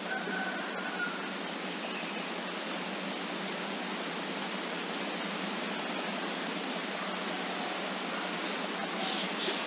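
Steady, even hiss of background noise with no speech.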